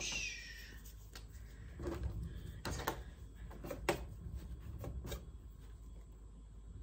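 Handling noise while a plant label is fetched: a few light clicks and knocks, spaced about a second apart, over a low steady rumble.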